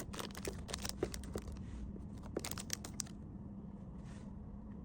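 Crinkling, rustling and small clicks of plastic packaging and small items being handled, busy for about three seconds and then dropping away to a faint steady hum.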